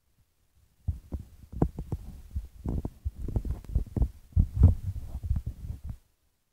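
Handling noise on the phone's microphone: irregular low thuds, knocks and rubbing, starting abruptly about a second in and stopping shortly before the end.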